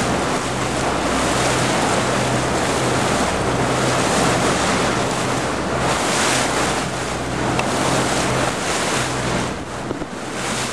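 Wind buffeting the microphone and water rushing past the hull of a Sea Ray cruiser underway through choppy water, over the steady low drone of its engine.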